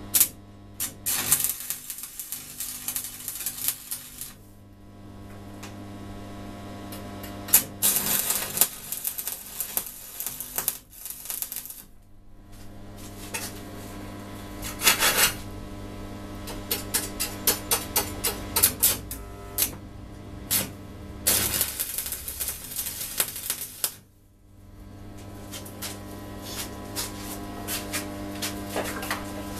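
Stick (arc) welding tack welds on steel rod: repeated bursts of arc crackle, each several seconds long, with short pauses between them, over a steady electrical hum.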